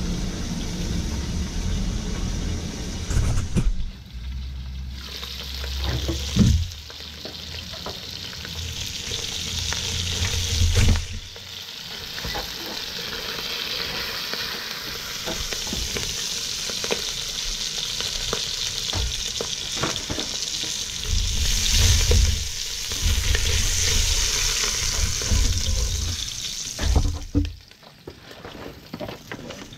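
Whole trout frying in oil in a deep pot: a steady sizzle, with spatula scrapes and knocks against the pan as the fish is turned and lifted, and intermittent low rumbling. The sizzle drops away near the end.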